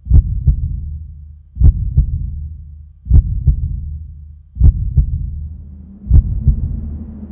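A slow heartbeat: paired lub-dub thumps about every one and a half seconds, five in all. A low hum and a faint hiss come in near the end.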